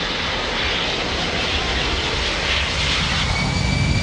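C-17 Globemaster III's four Pratt & Whitney F117 turbofans on landing approach: a steady jet rumble, growing slightly louder, with a high turbine whine coming in about three seconds in as the aircraft nears the runway.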